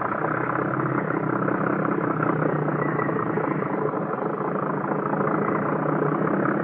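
Radio-drama sound effect of a motor boat's engine running steadily as the boat gets under way: a constant low engine drone under a rushing hiss.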